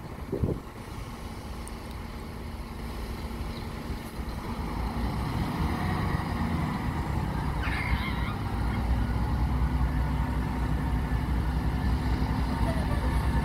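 Class 158 diesel multiple unit pulling away and approaching at low speed, its engines making a steady low rumble that grows louder from about five seconds in.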